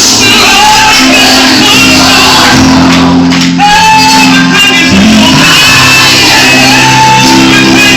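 Loud gospel worship music with a held bass line, with singing and shouts over it.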